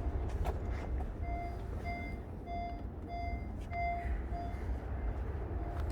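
A car's electronic warning chime beeping at an even pace, about one short beep every 0.6 seconds, starting about a second in and stopping after six beeps, with one more near the end, over a low rumble.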